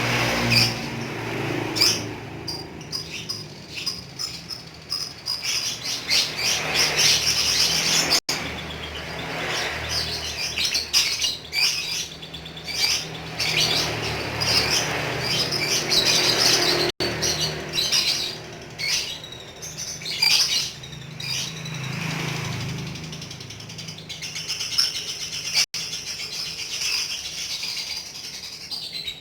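Lovebird chattering in a long, rapid run of high chirps and trills, the continuous 'ngekek' song kept by bird hobbyists. It is broken by brief dropouts about every eight or nine seconds.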